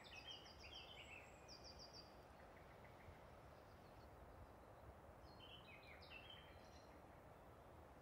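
Near silence: faint background hiss with a few soft bird chirps in two short clusters, one at the start and one about six seconds in.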